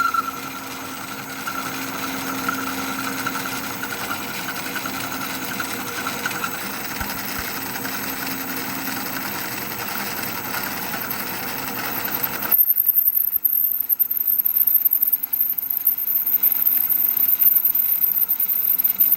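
BCA mini jig borer cutting metal dry, with no cutting fluid, giving an awful screeching. About two-thirds of the way in the sound changes abruptly, turning louder and dominated by a very high-pitched, wavering whine.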